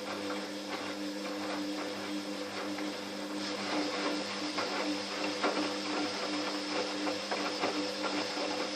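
Fagor washing machine running with a load of towels: a steady motor hum with a pulsing whine, and a scatter of small clicks and knocks from the turning drum.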